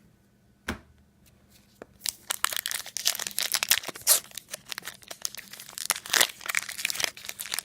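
Trading-card pack wrapper being torn open and crinkled by hand, a single tap just under a second in, then a long run of tearing and crinkling from about two seconds in.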